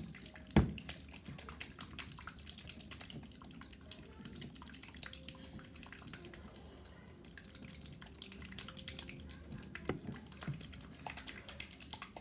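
Slime mixture sloshing inside a bottle being shaken, with many small clicks and drips and one sharp thump about half a second in.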